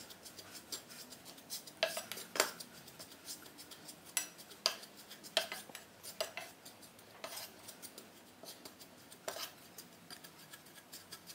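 Wooden spatula scraping and knocking against a frying pan while stirring desiccated coconut as it toasts: irregular scrapes and knocks, a few each second.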